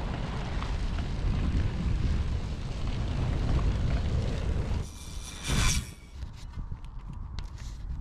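Wind rumbling on the microphone with tyre noise as a cyclocross bike rides over grass. About five seconds in there is a brief louder rush, and then it goes quieter with scattered small clicks.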